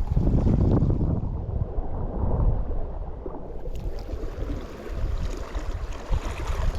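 Wind buffeting the microphone over the wash of sea water, with a short click a little under four seconds in.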